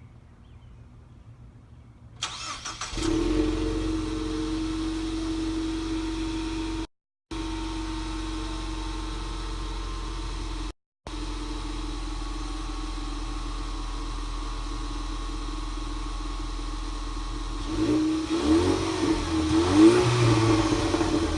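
2016 Ford Mustang EcoBoost's turbocharged four-cylinder engine starting about two seconds in and flaring briefly, then idling steadily through its stock exhaust. Near the end it is revved several times in quick blips.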